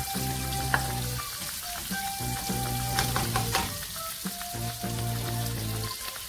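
Sliced onions sizzling in oil in a wok, being cooked until translucent, with a couple of sharp clicks. Background music plays over the sizzle.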